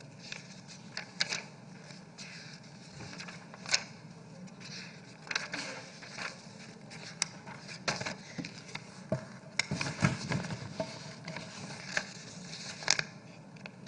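Sheets of paper being handled and leafed through close to a microphone: irregular rustles and sharp crackling clicks over a steady low hum.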